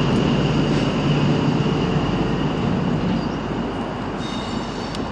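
An InterCity 125 HST train running out of sight, its diesel power cars and wheels on the rails rumbling and slowly fading away, with a steady high whine above the rumble.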